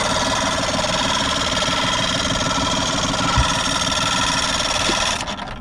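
Outboard boat engine being cranked by its electric starter, a steady whirring whine with a rapid pulsing beneath, for about five and a half seconds before it stops abruptly without the engine catching. The engine is failing to start even though the fuel primer bulb has just been squeezed.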